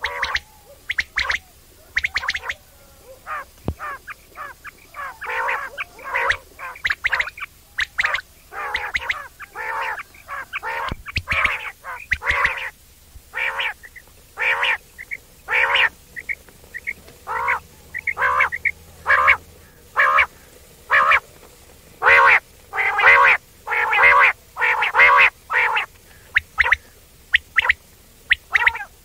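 A quail calling over and over with short, nasal-sounding notes, often given in quick runs of two to four: the 'wong wong' call.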